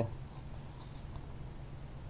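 Faint, steady low background hum with no distinct sound event.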